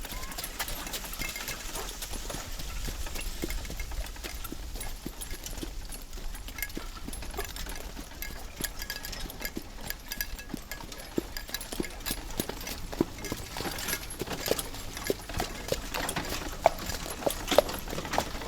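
Horse-drawn carriage on the move: hooves clip-clopping over a steady low rumble. The hoofbeats grow louder near the end.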